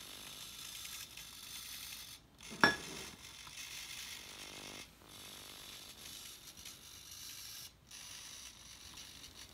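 Small GWS hobby servo sweeping the radar's ultrasonic sensor back and forth, a fine ratcheting whir of its gear train that breaks off briefly about every three seconds. A single sharp click about two and a half seconds in.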